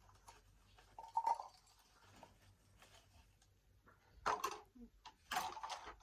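Kit items and plastic packaging being handled and rustled, with two louder crinkling bursts near the end.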